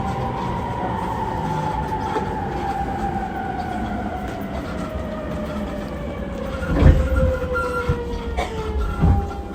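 E231-1000 series electric train running, its motor whine gliding steadily down in pitch as the train slows, over low wheel and rail rumble. Two heavier thumps come about seven and nine seconds in.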